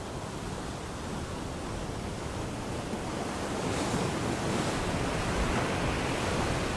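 Steady rush of sea waves and wind, growing a little louder about halfway through.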